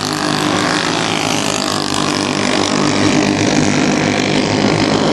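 Several racing engines running at speed together, a steady layered drone with no break.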